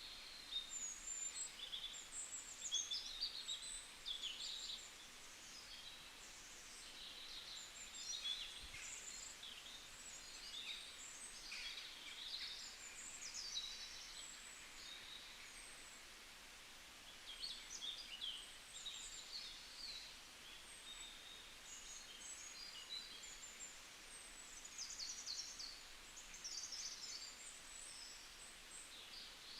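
Several birds chirping and singing in quick, high-pitched clusters of short notes and trills, over a faint steady background hiss.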